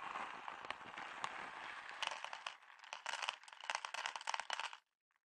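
Dry cat kibble pouring from a crinkly bag of Purina Friskies into a plastic bowl. The bag rustles, then the pellets patter and rattle into the bowl, stopping shortly before the end.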